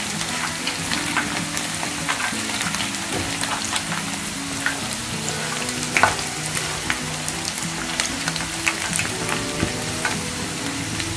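Crumb-coated chicken wings deep-frying in hot oil: a steady crackling sizzle full of small pops, with one louder crack about six seconds in.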